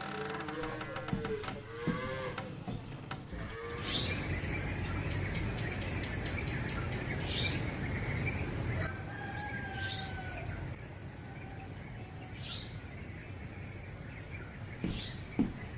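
Cattle lowing, with a long call fading out in the first few seconds, then steady outdoor farm ambience with a bird giving a short high chirp every few seconds.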